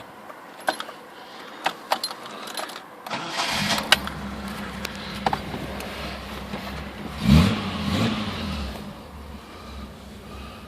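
A few light clicks, then the Ford Cortina Mk5's 3.0 Essex V6 cranks briefly and catches about three and a half seconds in, settling into a steady idle. It is blipped once about halfway through, its pitch rising and falling, then returns to idle.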